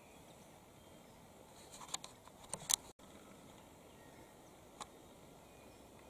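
Quiet open-air ambience with a faint steady hiss. A few short, sharp clicks or chirps come in a quick cluster around two to three seconds in, and a single one near five seconds. The sound drops out for an instant at a cut about three seconds in.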